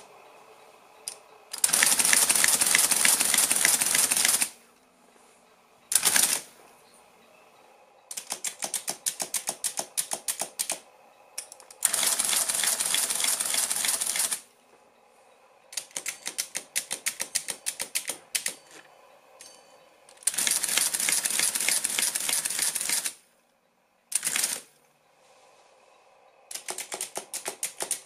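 Precisa 160-12 electro-mechanical adding machine, running without its case, its motor-driven mechanism cycling in repeated bursts as keys are pressed. Stretches of rapid mechanical ticking alternate with three longer stretches of dense, loud clatter, each a few seconds long, plus two brief single bursts. Quiet pauses fall between the bursts.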